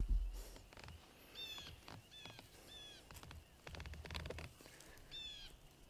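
A bird calling four times in short, high notes, each about a third of a second long, over soft rustling and a few small knocks. A low thump sounds at the very start.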